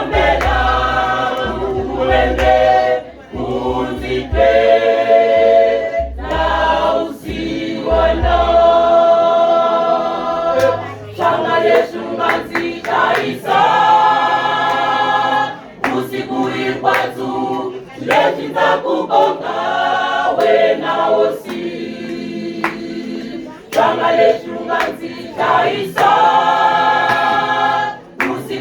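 Choir singing, phrase after phrase, with low thuds underneath during the first nine seconds or so.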